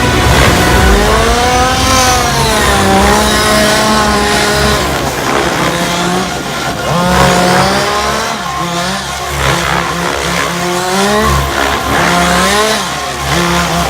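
RC helicopter flying, its motor and rotor whine rising and falling in pitch again and again as it manoeuvres.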